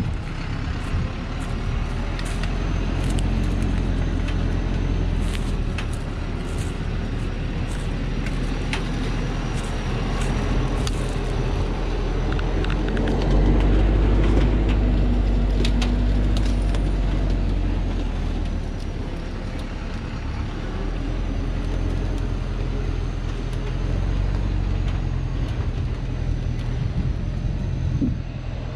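Diesel engine of a Thaco Forland truck loaded with acacia logs, working under load on a rutted dirt track, growing louder about halfway through and then easing. Scattered sharp clicks and knocks sound over the engine.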